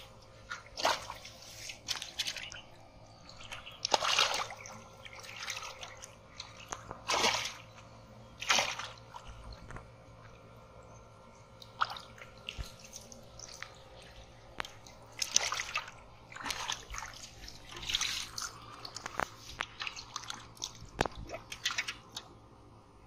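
Irregular splashing and sloshing of shallow muddy water as a carp thrashes while being grabbed by hand, with water slopping in a pot holding the caught fish.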